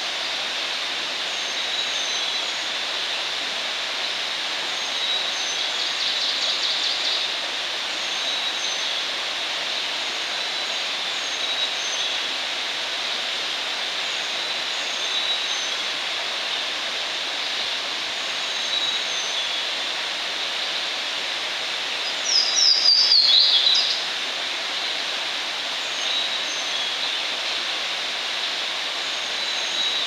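Carolina chickadee, ovenbird and Louisiana waterthrush singing over the steady rush of a river. Short high notes come every second or two. The loudest song, about 22 seconds in, is a quick run of notes falling in pitch.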